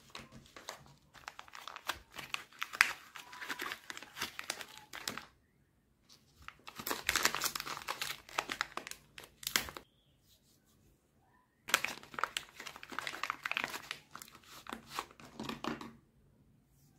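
Paper wrapper of a bar of soap being crinkled and torn open by hand: three spells of crackling rustle with short pauses between.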